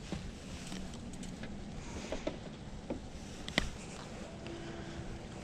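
Light handling noises, soft clicks and rustles, as a smallmouth bass is unhooked by hand and the soft-plastic lure pulled from its mouth. One sharper click comes about three and a half seconds in, over a steady low background noise.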